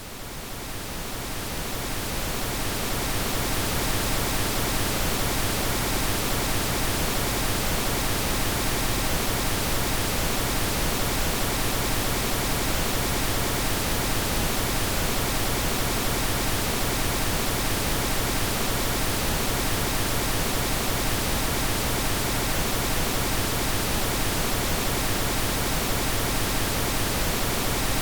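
Synthetic pink noise: a steady, even hiss across the whole range, fading in over the first few seconds and then holding level.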